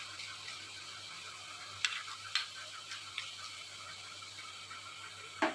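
Small drops of gram-flour (besan) batter deep-frying in hot oil in a kadai: a steady sizzle with crackling. A few sharp clicks sound over it, about two, two and a half and three seconds in, and a louder one at the end.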